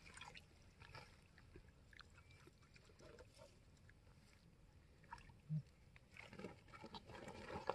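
Near silence with a few faint ticks; from about six seconds in, faint rustling as a plastic bag of fish is lifted from the water's edge.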